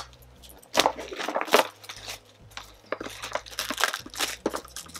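Cardboard subscription box and its paper packaging being torn open: irregular tearing, crinkling and sharp cracks, the loudest a little under one second and about one and a half seconds in.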